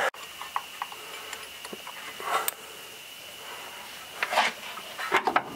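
Faint clicks and a few short scrapes of metal parts being handled at a truck's bare front wheel hub, over a steady high-pitched whine.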